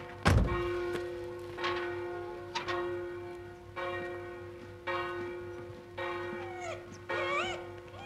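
A bell tolling, about seven strokes roughly a second apart, each ringing on. The first stroke has a heavy low thud. Near the end a dog starts to whine.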